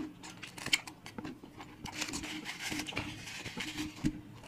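Close-up eating sounds: chewing and wet smacking with scattered sharp clicks as crispy fried danggit (dried rabbitfish) and mango are eaten.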